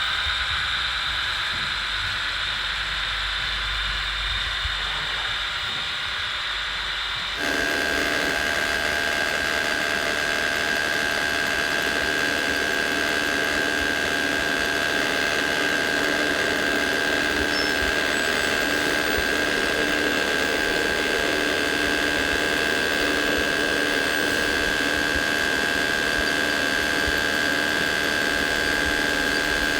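Electric motors and gearing of radio-controlled construction models running with a steady mechanical whine. About seven seconds in the sound changes abruptly to a slightly louder, differently pitched whine.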